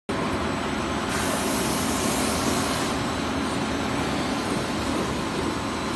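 Combined sanding and brushing machine for door making running with a steady, even noise, with an extra high hiss for about two seconds starting a second in.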